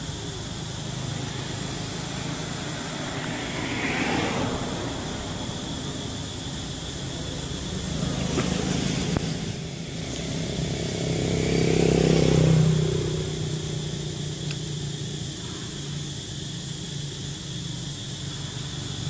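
Motor vehicle engines passing by: a steady low engine hum that swells and fades several times, loudest about twelve seconds in.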